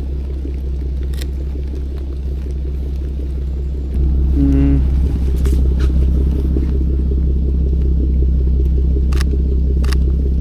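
Ford Mustang GT's V8 idling steadily with a low rumble, getting louder about four seconds in. A brief tone sounds just after, and a few sharp clicks are heard.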